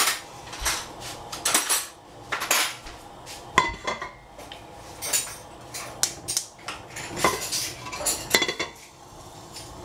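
Stainless steel cookware clattering on a gas stove: an irregular string of sharp metal knocks and clinks, a few of them ringing briefly.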